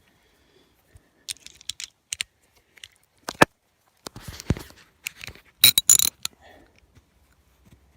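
Scattered metallic clinks and knocks of hand tools and hinge hardware being worked on a truck door hinge, with the loudest a cluster of sharp clinks about six seconds in.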